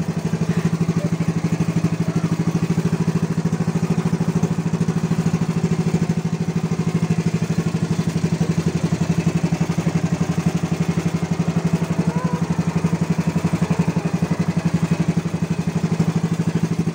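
Motorized outrigger boat's engine running steadily under way, a fast, even putter that holds its pitch throughout.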